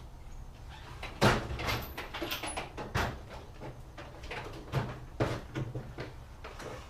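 Metal tools clattering: a series of about six sharp knocks and clinks, some ringing briefly, as a socket is picked out and fitted to the clutch basket nut.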